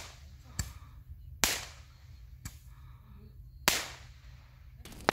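Small fireworks bursting in the sky: four sharp bangs over about three seconds, each with a short echoing tail, the last the loudest.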